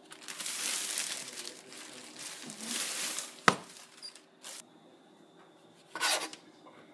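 Plastic bread bag crinkling and rustling as bread is taken out of it, then a single sharp click about three and a half seconds in. Near the end, a short scraping burst as a large kitchen knife starts cutting the crust off a slice of bread.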